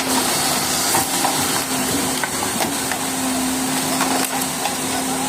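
Road roller running with a steady engine hum while its drum crushes motorcycle exhaust silencers, giving scattered cracks and crunches of breaking metal.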